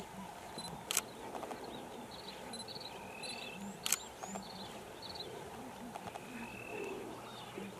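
Male lion feeding on a buffalo carcass, tearing at the meat, with two sharp clicks about a second and four seconds in. Birds chirp and whistle in the background.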